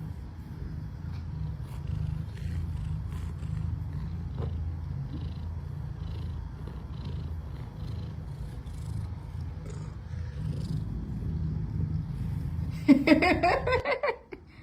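Domestic cat purring steadily and close, a continuous pulsing low rumble that stops near the end, just after a short, louder meow.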